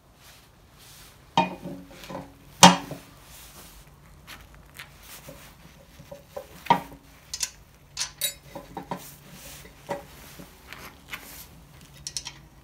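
Irregular metallic clinks and knocks of steel parts being handled and bolted together by hand: a plough-blade foot bracket, bolts and nuts tapping against the painted steel blade, with one louder knock about three seconds in.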